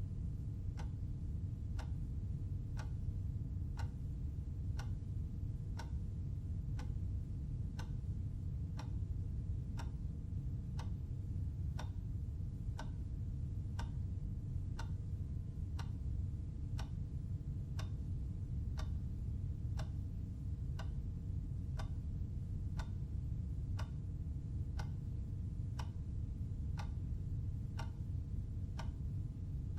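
Clock ticking steadily, about one tick a second, over a steady low hum.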